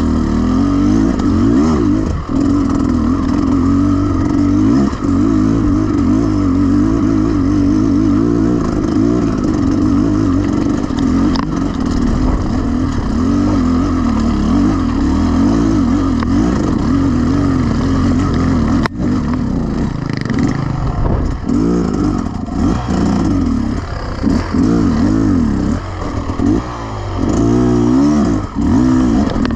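Beta Xtrainer 300 two-stroke enduro motorcycle engine running under load, its revs rising and falling with the throttle, and swinging more sharply in the last third. A single sharp knock comes about two-thirds of the way through.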